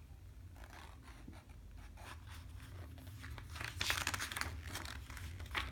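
Paper pages of a picture book rustling under a small child's hands: soft brushing and taps on the page, then a louder rustle as a page is turned about two-thirds of the way in.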